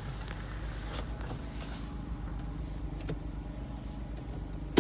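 Jeep engine idling, a steady low rumble, with one sharp knock at the very end.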